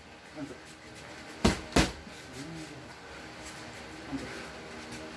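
Two sharp pops of boxing gloves striking focus mitts in quick succession, a one-two about a third of a second apart, about a second and a half in.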